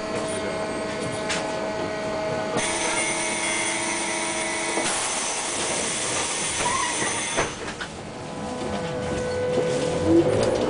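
Inside an Ikarus 280 trolleybus, a steady electrical hum runs while it stands. A hiss starts about five seconds in and cuts off sharply at about seven and a half seconds. Near the end the electric traction drive starts to whine, its pitch rising as the trolleybus pulls away.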